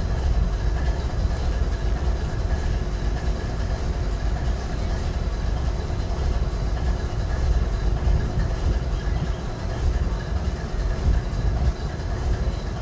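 GE ES40DC diesel-electric locomotive's GEVO-12 V12 engine idling: a steady low rumble with a faint steady hum above it.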